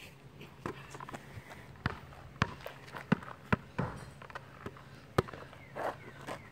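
A basketball bouncing on an asphalt driveway, dribbled by hand: sharp single bounces at uneven intervals, some fainter than others.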